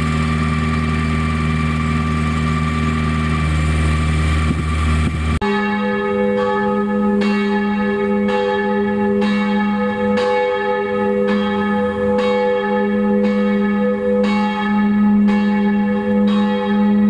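A farm tractor's diesel engine running steadily for about five seconds. It then gives way abruptly to church bells ringing, several bells sounding together and struck about once a second.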